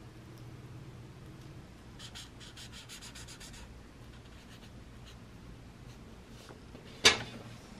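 Yellow marker scratching on notebook paper while colouring in a box: a quick run of about eight short strokes. Near the end comes a single sharp click, the loudest sound.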